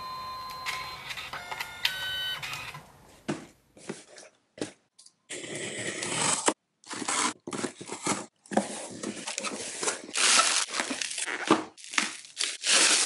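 A few electronic beeps and steady tones for the first three seconds, then a hobby knife slitting the packing tape on a cardboard box and cutting open crackling bubble wrap, in short rustling bursts with silent gaps between.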